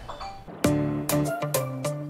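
Background music: a light chiming melody, then about half a second in a livelier track with a bass line and a steady beat comes in.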